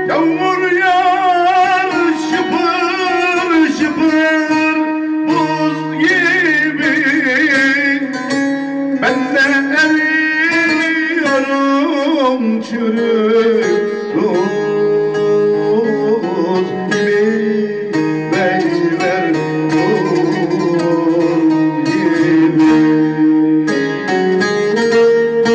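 Turkish folk music: a bağlama (long-necked lute) plays the song's melody over sustained low notes.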